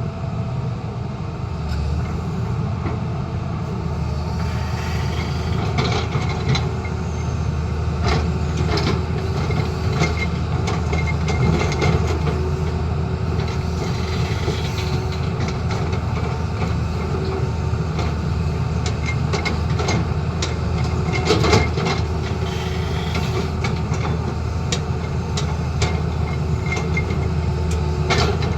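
Tata Hitachi excavator's diesel engine running steadily, with frequent short clanks and knocks from the machine working.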